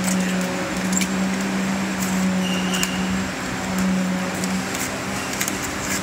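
Workshop room sound: a steady low machine hum over a constant rush of noise, with a few scattered light clicks and taps from the hand assembly of wooden model parts.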